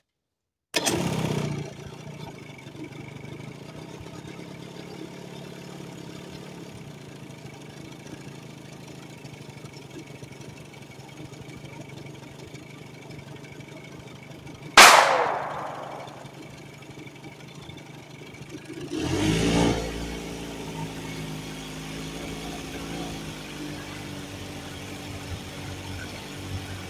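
Boat motor idling steadily. About 15 seconds in there is one sudden loud impact that fades over a second or so, and near 19 seconds the motor swells louder briefly before settling back to idle.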